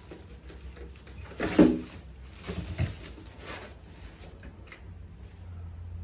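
Turntable packaging being handled: irregular rustling, scraping and clicks of box and packing material, the loudest a short scrape or thump about one and a half seconds in. From about five seconds in only a steady low hum remains.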